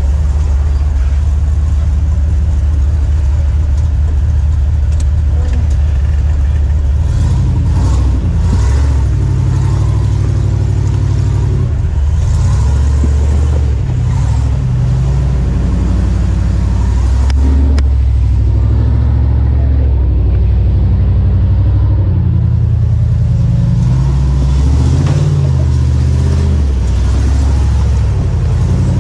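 Jeep Comanche off-road truck's engine working under load while crawling a rocky trail, its revs rising and falling over and over, with a few short knocks in the middle stretch.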